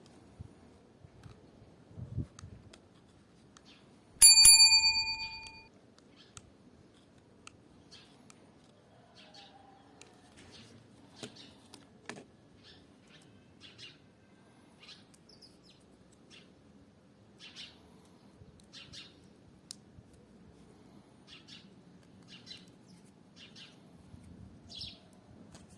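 Birds chirping on and off, with one loud metallic ring about four seconds in that fades over a second and a half, and a dull thump shortly before it.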